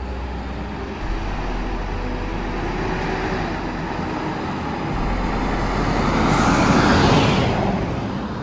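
Fire engine driving past. Its engine and tyre noise grows as it approaches, is loudest about seven seconds in as it passes close by, then falls away.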